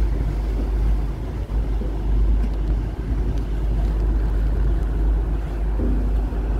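Steady low rumble of a moving passenger ferry, with wind buffeting the microphone.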